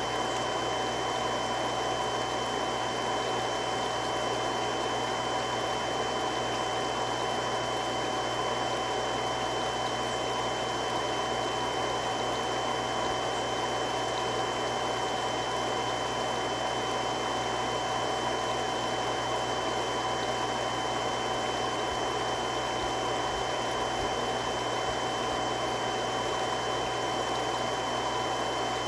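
Three-stage irrigation water pump running steadily: a constant rushing noise with a few fixed whining tones in it, unchanging throughout.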